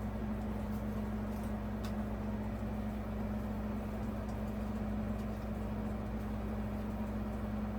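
Room air conditioner running with a steady hum, and a faint click about two seconds in.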